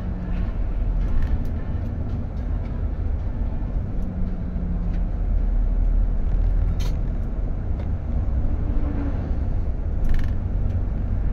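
Steady low rumble of a road vehicle under way, engine and road noise, with a couple of brief sharp ticks partway through.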